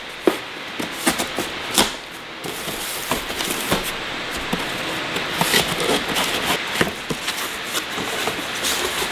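Cardboard box being opened: a blade slitting the packing tape and the flaps being pulled apart, with scraping, rustling cardboard and a few sharp taps.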